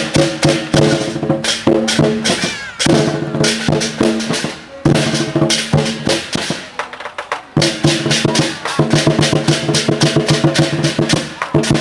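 Temple procession band: drums and cymbals struck in a fast, driving rhythm over held pitched tones, with short breaks between phrases.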